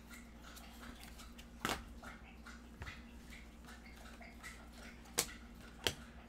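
A dog lapping water, a faint run of laps about four a second. Over it come three sharp clicks as trading cards and a clear plastic card holder are handled, about one and a half, five and six seconds in.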